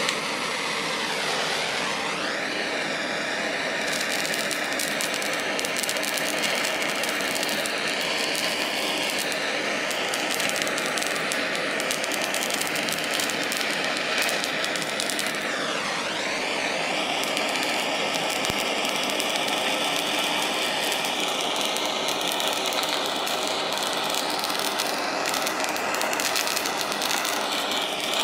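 Handheld gas torch burning with a steady hissing roar as its flame is played on a bell pepper's skin. The hiss shifts in tone briefly about two seconds in and again about sixteen seconds in.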